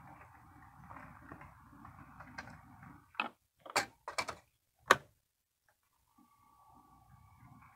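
HO scale model train running slowly on the track: a steady hum of the small locomotive motor and rolling wheels. Four sharp clicks come between about three and five seconds in. After a brief gap the running sound returns with a steady whine.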